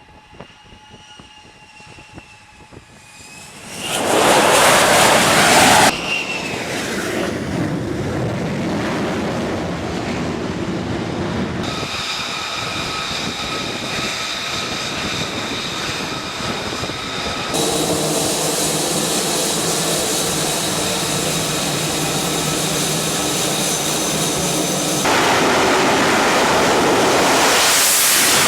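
F-35A Lightning II's single Pratt & Whitney F135 turbofan jet engine, a faint whine at first and then loud jet noise with a steady whining tone from about four seconds in. The sound changes abruptly several times.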